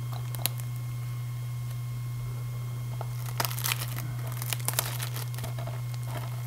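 Cellophane shrink-wrap on a DVD case crinkling and tearing as it is picked and pulled off by hand, in short bursts of crackles about half a second in and again from about three and a half to five seconds in.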